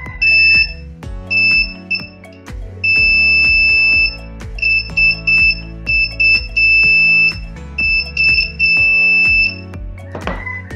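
Small buzzer in a homemade transistor-tester circuit beeping at a high, steady pitch, on and off irregularly in short and longer beeps as the test probes make and break contact with the transistor's legs. A sharp click near the end; background music underneath.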